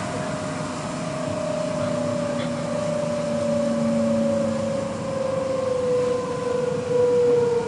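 Electric S-train running, heard from inside the carriage: the traction motors whine in a tone that slowly falls in pitch over the steady rumble of the wheels on the track, as the train slows for a station.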